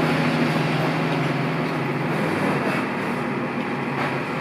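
Concrete mixer truck's diesel engine running with a steady drone, easing off a little about three seconds in.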